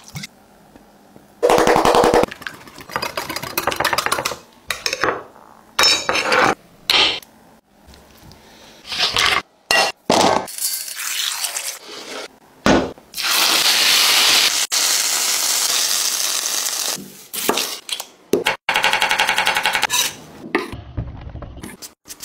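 Close-miked kitchen prep sounds: sauce poured into a glass bowl, knocks and clinks of utensils against glass and metal, and scraping. A steady rushing noise runs for about four seconds past the middle, and a burst of quick, even strokes comes near the end.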